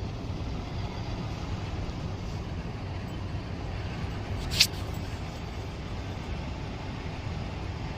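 Steady low rumble of a vehicle running, with one sharp click about halfway through.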